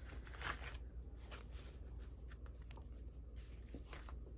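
Vintage cardboard advertisement cards and postcards being handled and sorted by hand: faint papery rustles and light taps, a few each second, over a low steady hum.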